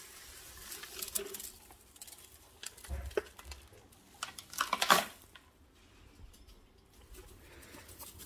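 Dry straw bedding rustling and crackling as a hand rummages in it and pulls out handfuls, in irregular bursts with the loudest about five seconds in.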